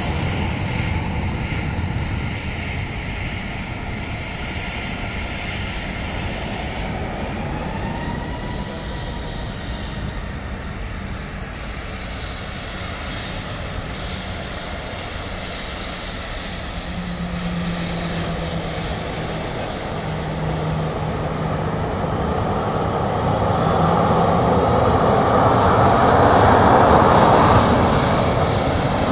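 Jet airliner engines running at taxi power: a steady roar that grows louder over the last several seconds as a Boeing 737 taxis close by.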